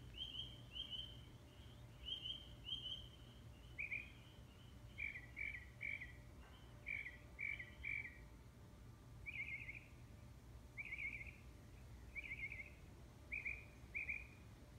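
A bird singing a string of short, high chirped notes in groups. It repeats one note several times, then switches to a different one. A faint steady low hum runs underneath.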